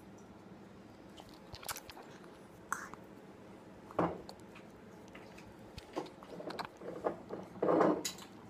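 Biting and crunchy chewing of an apple in scattered, irregular crunches, with a louder crunch about four seconds in and a louder burst near the end.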